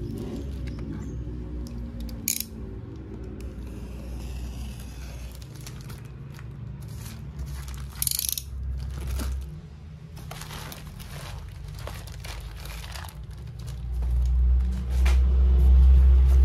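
Plastic courier mailer bag crinkling and tearing as it is pulled open off a cardboard box, in scattered crackling bursts. Near the end a loud low rumble as the box is picked up and handled.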